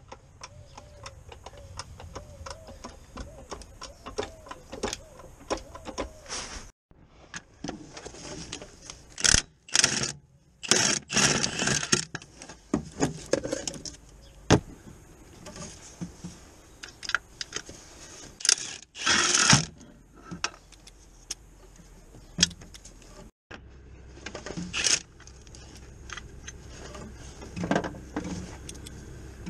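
Metallic clicks, clinks and knocks from work under the car with a trolley jack and hand tools, with several louder metallic clatters in the middle.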